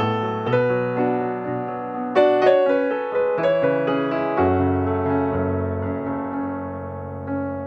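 Background solo piano music, played slowly, with struck notes and chords ringing out and fading one after another.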